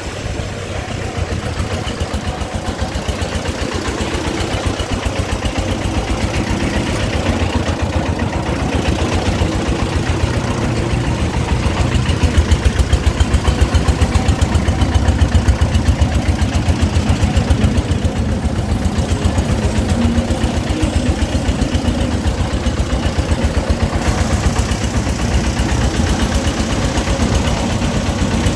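Công nông farm truck's single-cylinder horizontal diesel engine chugging with a steady rapid beat as it pulls a load of bricks. It gets louder about twelve seconds in.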